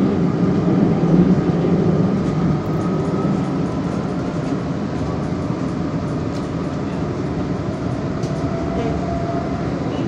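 Metro train running between stations, heard from inside the carriage: a steady rumble with a faint whine that drifts slowly in pitch. It is a little louder for the first couple of seconds.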